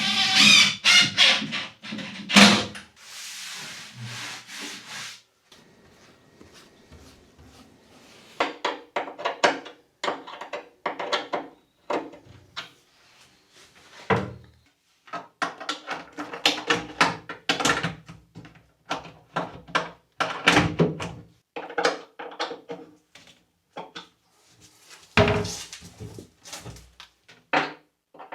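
Irregular knocks, scrapes and rubbing of hand work with wooden parts being handled and fitted, with a short hissing stretch a few seconds in.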